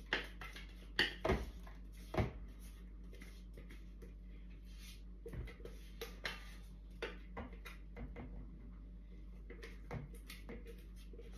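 Spatula scraping batter from a stainless-steel Thermomix bowl: a few sharp knocks against the bowl in the first couple of seconds, then softer scraping with occasional taps.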